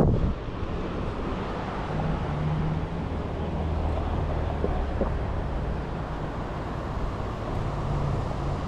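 A motor running steadily with a low hum, its pitch wavering slightly, with a sharp knock right at the start and a couple of light clicks about five seconds in.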